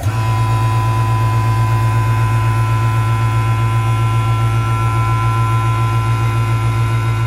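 1/2 HP dual-stage rotary vane vacuum pump kicking on and running steadily, a loud low hum with a thin steady whine above it, as it pulls the tanks down toward a raised vacuum set point.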